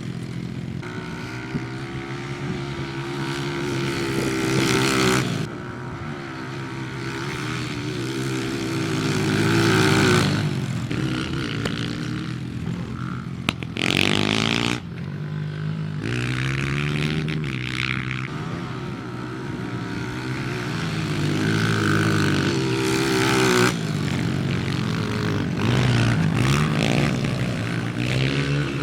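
Small single-cylinder four-stroke pit bike engines revving hard under load. The pitch climbs through each gear and drops at every shift, with several abrupt breaks where the sound cuts.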